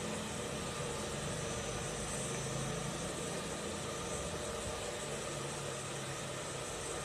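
Steady mechanical hum and hiss, like an idling engine or traffic, with no distinct clicks or knocks.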